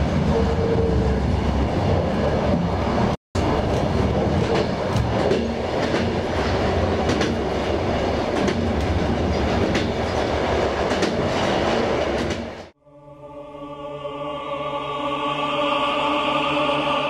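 A train runs along the track with a steady rumble, its wheels clicking over the rail joints, and the sound drops out for an instant about three seconds in. About thirteen seconds in the train sound stops abruptly, and slow choral music with held chords swells in.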